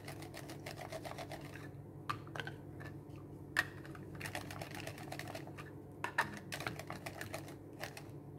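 Mushrooms being sliced on a handheld plastic mandoline slicer, pushed across the blade with a food holder: irregular clicks and scrapes, some strokes coming in quick clusters.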